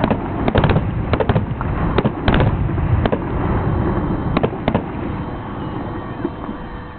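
Aerial fireworks shells bursting in a rapid finale barrage: many sharp bangs and cracks over a low rumble. The bangs thin out after about four and a half seconds and the rumble fades away.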